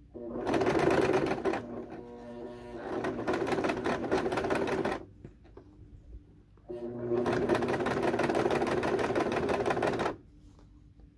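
Domestic electric sewing machine zigzag-stitching through coiled cotton rope, running in bursts. A short fast run eases into a slower stretch, picks up again and stops about five seconds in, and the machine runs once more from about seven to ten seconds.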